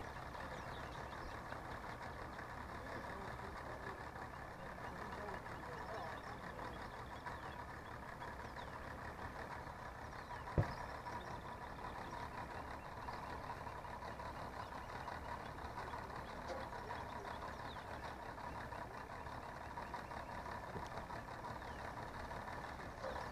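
Faint low engine rumble with a thin steady high tone, and one sharp knock about ten seconds in.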